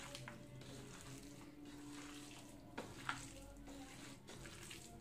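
Faint wet squishing of a hand kneading bone-in chicken pieces into a thick spice, maida and cornflour marinade, with a few soft squelches standing out about three seconds in. A faint steady hum runs underneath.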